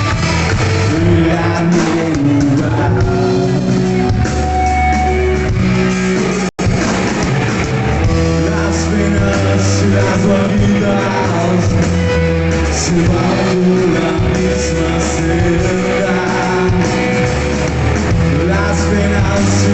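Rock band playing live with a singer and electric guitar. There is a momentary cut in the sound about six seconds in.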